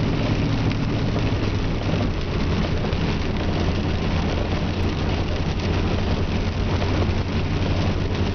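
Vehicle engine running hard at steady high revs at highway speed, heard from inside the cabin as a steady low drone, under a dense hiss of tyres on wet pavement and rain.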